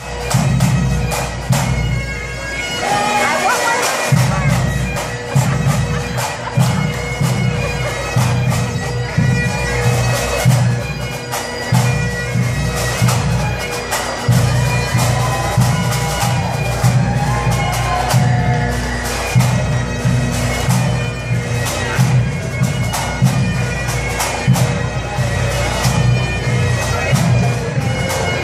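Pipe band of Great Highland bagpipes playing a tune over their steady drones.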